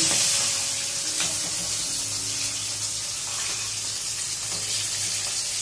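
Pieces of hilsa frying in hot mustard oil in a steel wok: a steady sizzle.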